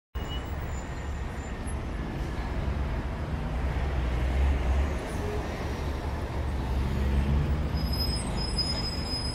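Outdoor street noise from the camera's own microphone: a steady low rumble under a light hiss.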